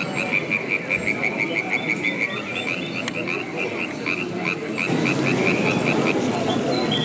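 Frog croaking in a quick series of short calls, about four or five a second, slowing and fading out about six seconds in. A murmur of crowd chatter grows louder near the end.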